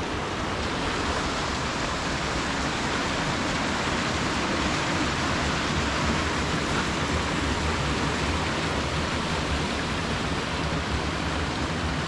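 Steady rushing of white water from the Alb, a Black Forest mountain stream cascading down the Menzenschwand waterfall gorge.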